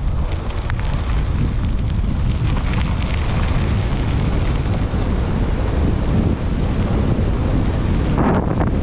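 Heavy wind buffeting the microphone while riding an electric bike at speed, a steady loud rumble that sets in abruptly.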